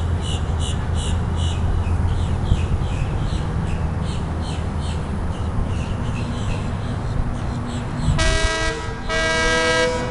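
Air horn sounding two long blasts near the end, each rising in pitch as it starts, with several notes sounding together. Before it, a bird calls in short repeated chirps over a low rumble.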